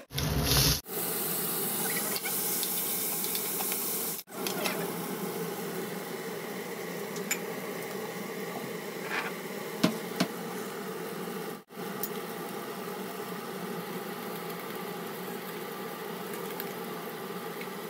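Food frying and sizzling in hot oil in a kadhai, a steady hiss with a loud burst in the first second. Scattered clicks of a spoon against the pan come as it is stirred.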